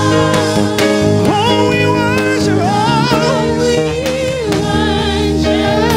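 Live gospel worship music: a band plays steady chords with regular drum strikes while a singer holds long wavering notes.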